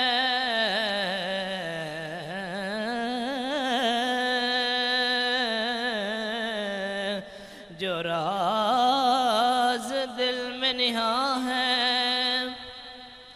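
A male voice singing an Urdu naat into a microphone, drawing out one line in long, ornamented held notes. There is a short break about seven seconds in, and the voice fades near the end.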